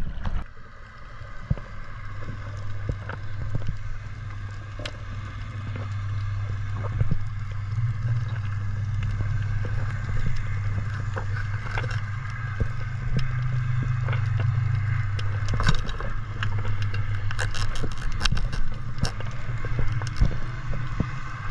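Underwater sound picked up by a diving camera: a steady low drone with scattered sharp clicks and crackles, the clicks growing denser in the last few seconds.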